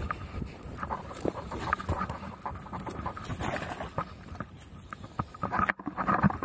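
A person breathing hard while dragging a large alligator gar by a strap over dry leaf litter and twigs, with crunching and scraping. A splash near the end as the fish reaches the water.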